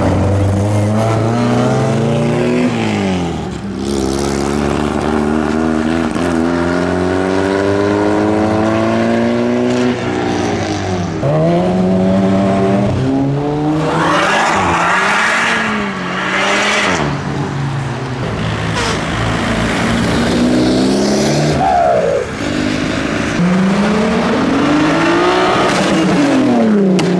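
Modified cars driving out one after another, each engine note rising as it accelerates and falling away as it passes, with one hard acceleration about halfway through. A lowered Mk1 VW Caddy pickup passes at the start, and a Mk5 Golf R32's VR6 accelerates past near the end.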